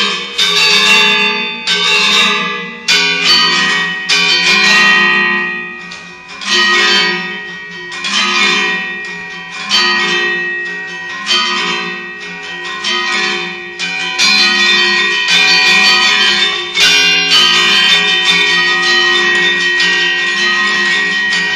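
Gender wayang, the bronze-keyed metallophones that accompany Balinese shadow puppetry, struck with mallets and playing a fast interlocking melody. The notes ring and decay in phrases that swell and fall back.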